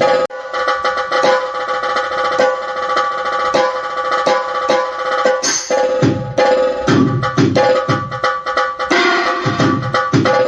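Roland SPD-20 Pro digital percussion pad playing a fast run of percussion strikes over ringing pitched tones, with deeper drum strokes joining about two-thirds of the way in.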